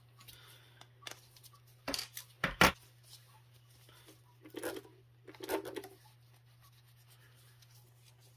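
A spectacle lens being deblocked by hand with pliers: sharp clicks about two seconds in, the loudest as the red blocking pad snaps off. Then soft rubbing and scuffing as the lens is wiped with a cleaning cloth, over a steady low hum.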